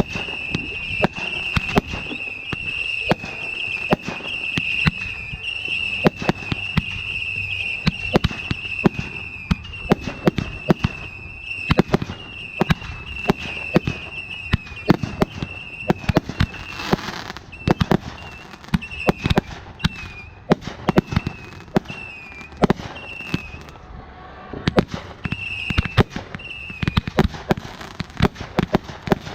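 Fireworks going off: many sharp pops and bangs throughout, over a high wavering whistle that breaks into short pieces about halfway through and stops a few seconds before the end.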